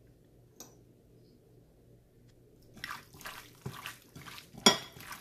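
Raw mutton liver being mixed with spice powders and salt in a bowl: irregular wet, squelching strokes starting about halfway through, with one sharp knock against the bowl near the end.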